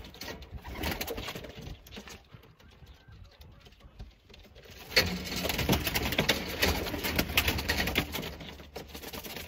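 Pigeon wings flapping in a rapid, loud flurry for about three seconds, starting about halfway through, as the bird is grabbed inside a wire coop. Softer scattered rustling and clatter comes before it.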